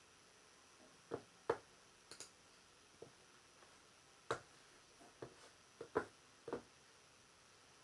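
Sparse, irregular clicks and taps of computer keys and a mouse, about ten over several seconds, some in quick pairs with short pauses between.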